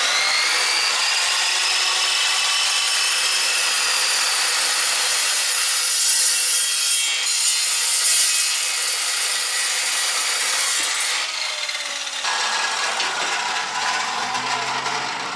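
A power tool cutting a length of steel Unistrut channel to size: a continuous harsh cutting noise with a steady high whine, which changes in tone about twelve seconds in and tapers off near the end.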